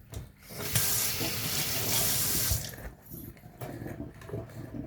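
Water running from a tap for about two seconds, then shut off, as something is rinsed clean.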